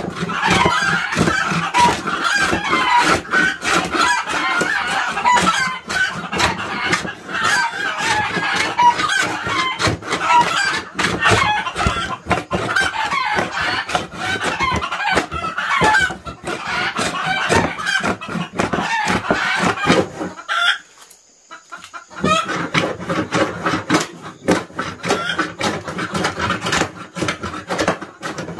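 A flock of chickens clucking, with many short sharp taps mixed in. The sound drops almost to silence for about a second and a half roughly twenty seconds in, then resumes.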